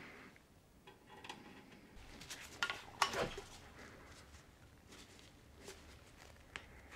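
Faint, light metallic clinks and taps of tweezers and small metal pieces. A cluster comes about two to three seconds in, with a few single ticks before and after.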